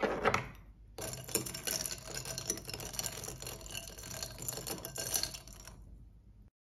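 Long metal spoon stirring a drink in a glass tumbler, a fast run of light clinks and ticks of metal against glass. A brief knock just at the start as the spoon is picked up off the table.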